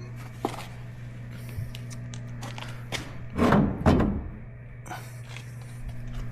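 Two thumps about three and a half seconds in, with a few lighter knocks around them, as a car's rear bumper cover is pushed and knocked while being fitted. A steady low hum runs underneath.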